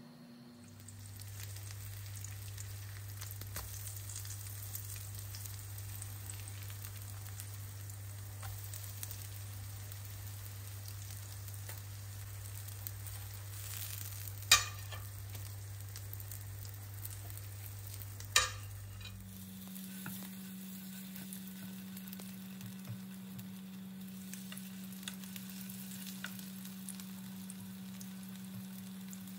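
Onion and carrot fritters sizzling in shallow oil in a non-stick frying pan, under a steady low hum. Partway through, a spatula turning the fritters knocks sharply against the pan twice, about four seconds apart.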